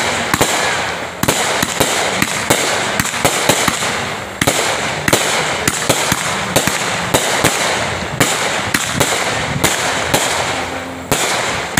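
Aerial fireworks going off in quick succession: sharp bangs of launches and bursts, a few a second, over a continuous crackle. The bangs let up briefly twice, then carry on.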